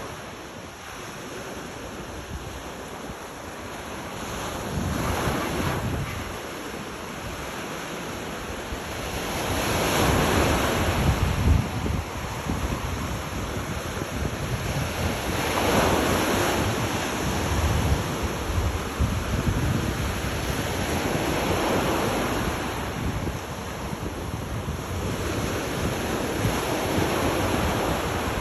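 Ocean waves breaking on a shore, the surf surging and easing back about every five to six seconds.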